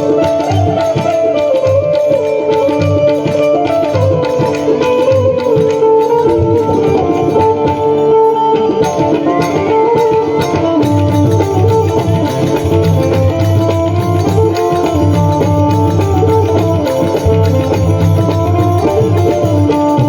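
Loud Indian-style music with drums under a sustained melodic line; the bass beat grows heavier about eleven seconds in.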